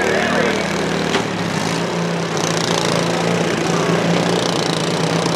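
Riding lawn mower engines running at a steady drone as the derby mowers push against each other, with one sharp knock about a second in.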